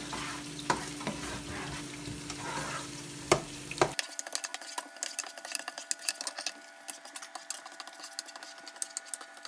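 Sliced onions sizzling in hot palm oil in a pot, with a spatula stirring them and clicking against the pot, once with a sharper knock.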